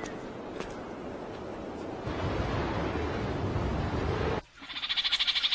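Wind blowing steadily, growing stronger about halfway through, then cut off abruptly. Near the end, a rapid, evenly pulsed high animal trill starts, of the kind made by insects or frogs.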